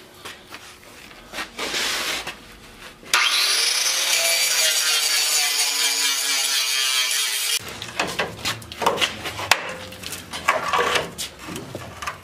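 Angle grinder spinning up and cutting into the rusty steel frame of a 2005 Chevy Silverado for about four and a half seconds, a steady hissing grind that cuts off suddenly. Scattered knocks and clanks of tools on metal before and after the cut.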